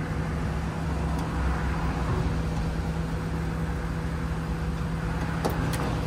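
Steady running hum of Mitsubishi Electric VRF outdoor air-conditioning units: a constant low tone over fan and compressor noise. A couple of light metallic clicks come near the end.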